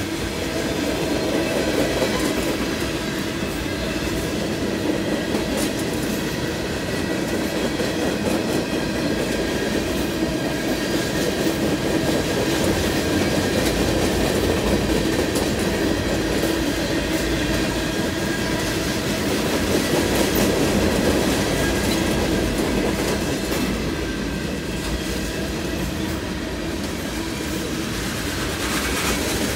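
Freight cars of a long train rolling past on steel wheels: a steady loud rumble with clacking over the rail joints, and a faint high wheel squeal.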